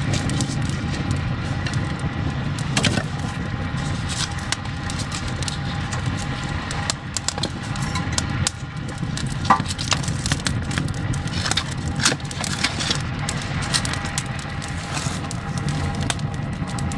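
Firewood burning in an ondol firebox (agungi): a steady low rumble of the fire with frequent sharp crackles and pops from the burning wood.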